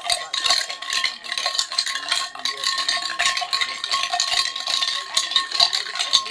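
Dense, irregular rattling and clattering, many quick knocks a second, over a steady high-pitched tone.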